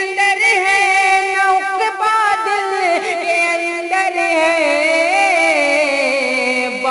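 A boy's voice singing a naat, an unaccompanied devotional song, in a long drawn-out passage of held, wavering notes whose pitch sinks lower through the second half.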